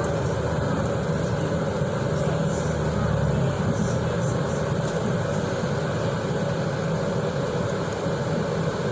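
Stagecoach bus running along the road, heard from inside the passenger cabin: a steady engine drone mixed with road and tyre noise.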